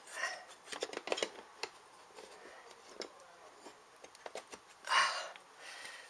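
Light clicks and taps of metal brackets and plastic parts being handled and fitted into a dishwasher's base, with a short louder rasp just before five seconds in.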